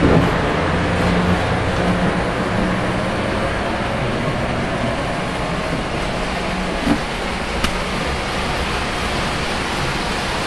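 Steady running rumble of Lionel O gauge model trains on the layout's three-rail track, with a low electric hum that fades after the first few seconds. Two small clicks about seven seconds in.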